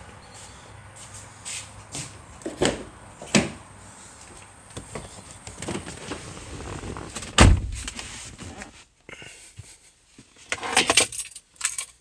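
Someone getting into a Nissan SUV: a few knocks, the driver's door shutting with a heavy thud about seven seconds in, then a brief jangle of keys near the end.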